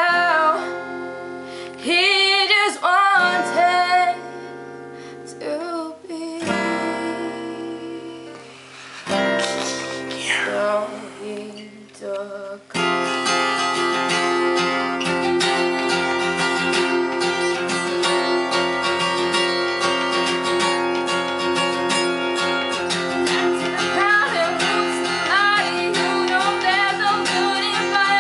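A woman sings while playing a Taylor acoustic guitar. At first the guitar plays sparse picked notes under her voice; a little before halfway it breaks into full, steady strumming that carries on under her singing.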